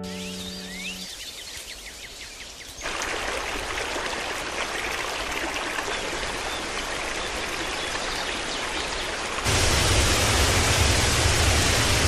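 Running water in a river: a soft rush with a few faint high chirps, growing to a steady full rush of a stream about three seconds in, then louder and deeper, like a waterfall, about nine and a half seconds in. A piano note fades out in the first second.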